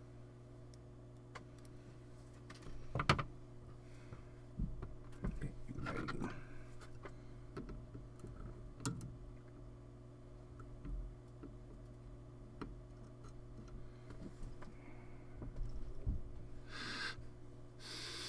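Small clicks, taps and scrapes of hands and tools working on a UPS circuit board over a steady low hum, the sharpest click about 3 s in. Then two quick sniffs near the end, checking the board for the fishy smell of leaked capacitor electrolyte.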